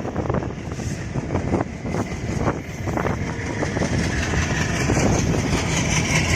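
Passenger train rolling past, its wheels clattering over rail joints in quick irregular knocks, then giving way about halfway through to a louder high-pitched rushing noise from the wheels on the track.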